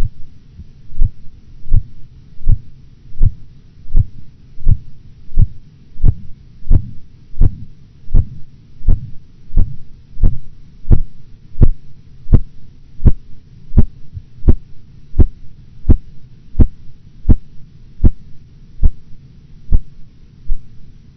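Korotkoff sounds from the brachial artery as a blood-pressure cuff deflates: a steady run of clear, repetitive taps, about one every 0.7 seconds, over a low rumble. They begin about a second in and stop about a second before the end. The first tap marks the systolic pressure of 116 mmHg and their disappearance the diastolic pressure of 90 mmHg.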